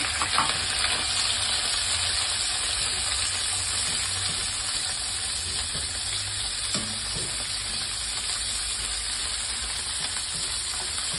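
Chicken wings sizzling steadily as they fry in hot oil with garlic over medium heat, just after going into the pan, with a few light taps of metal tongs as the pieces are spread out.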